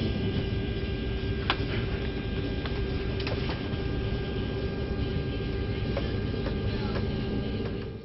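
Steady airliner cabin drone with a constant low hum, and a few light clicks and knocks from the overhead bins being handled; the sound cuts off abruptly at the end.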